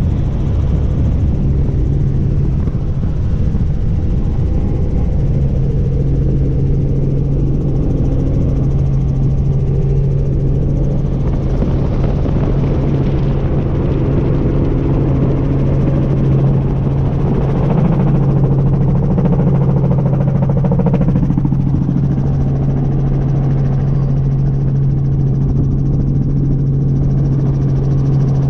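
Helicopter heard from inside the cabin in flight: a loud, steady drone of rotor and engine with a constant low hum.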